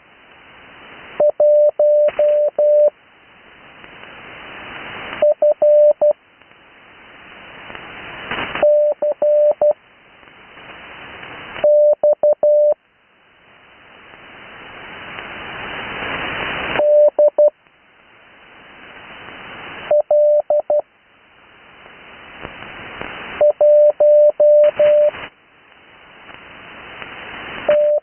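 Morse code (CW) received on an 80 m amateur radio receiver: a steady single-pitch tone keyed in dots and dashes, sent as separate characters with long gaps between them (Farnsworth spacing). Band hiss swells during each gap and drops back whenever the tone keys.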